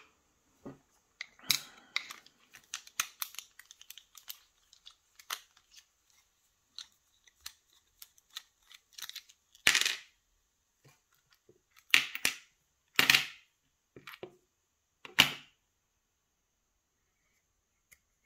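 Sharp metallic clicks and knocks as a padlock is handled and taken apart on a wooden desk: a flurry of small clicks in the first few seconds, then a few louder knocks spread through the rest.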